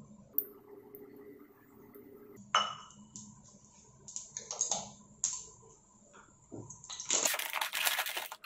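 A few light clicks and knocks of kitchenware on a pan on a gas stove, then, about seven seconds in, the loud crinkling of a plastic papad packet being handled and cut open with scissors.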